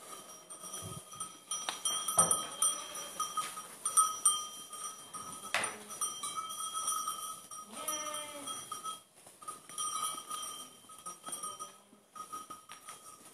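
Metal bells on goats' necks clanking and ringing on and off as the goats move. A few knocks come in the first half, and a goat bleats once, briefly, about eight seconds in.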